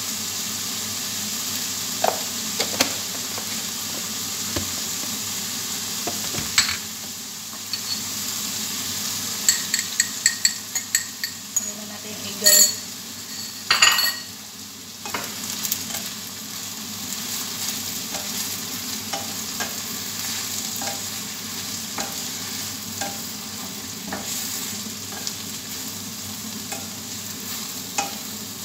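Sliced ampalaya (bitter melon) sizzling steadily in a frying pan, with a spatula ticking and scraping against the pan as it is stirred. There are a few louder knocks around the middle.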